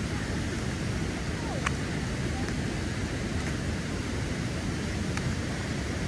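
Steady outdoor rushing noise, heaviest in the low end, with a single short click about a second and a half in.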